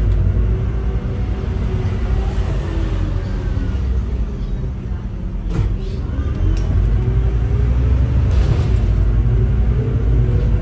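City bus heard from inside near the front as it drives in traffic: a steady low engine and road rumble that eases a little around the middle and builds again, with a sharp click about halfway.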